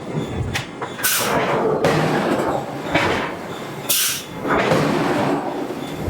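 Hydraulic forging hammer working steel billet: a rough, continuous mechanical noise broken by a hissing blast about every three seconds.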